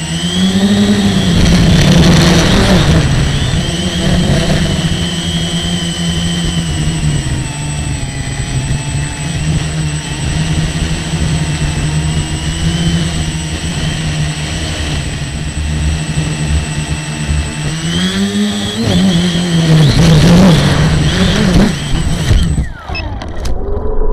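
A model airplane's motor runs at a steady pitch, then revs higher and wavers in its last few seconds before the sound cuts off sharply near the end.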